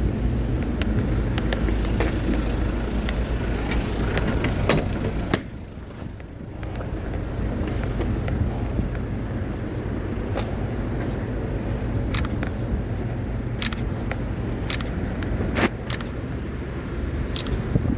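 A motor vehicle running with a steady low rumble and scattered clicks and rattles. The rumble drops suddenly about five seconds in and builds back up over the next couple of seconds.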